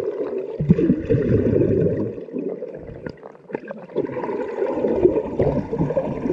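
Muffled gurgling and churning of creek water, heard through a GoPro camera held under the surface, with the high end dulled.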